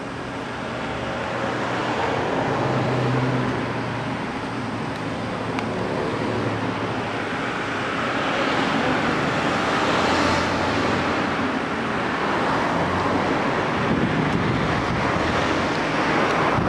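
Suzuki GSX1300R Hayabusa's inline-four engine running through a Yoshimura exhaust, a steady rough exhaust note whose level rises and falls gently a few times.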